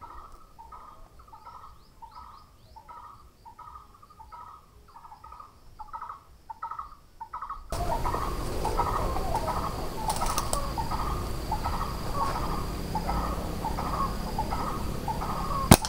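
Short bird calls repeated about twice a second over a steady high insect trill. Just before the end comes a single sharp snap of a rubber-band slingshot being shot.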